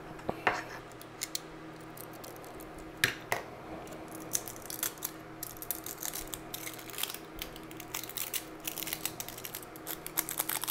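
Screwdriver tip scraping and picking at plastic stuck to a small perforated metal speaker cover: rapid small scratches and clicks, a few sharper ones in the first few seconds, then a dense run of them in the second half.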